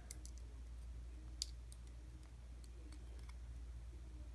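Faint, scattered clicks of small metal lock parts being handled as an American 5200 padlock's core is taken apart and its pins removed, with one sharper click about a second and a half in. A low steady hum runs underneath.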